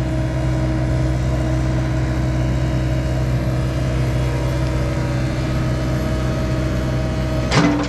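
John Deere 85G excavator's diesel engine running steadily at an even pitch. A brief louder sound cuts in near the end.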